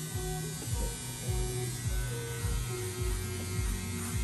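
Music with a steady low beat, about two thumps a second, over sustained tones.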